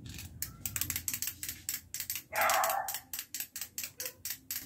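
Clockwork mechanism of a small wind-up toy chick running, a fast train of light ticks several times a second, interrupted once by a brief louder sound about halfway through.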